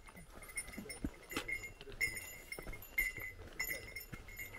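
A small bell jingling in short bursts about once a stride, with light footsteps on a mountain trail.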